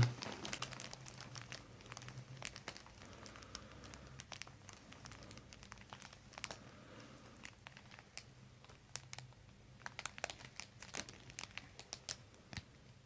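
Faint crinkling and small scattered clicks as the head shifts on a paper-covered headrest and the hands move beneath the neck, over a faint low hum.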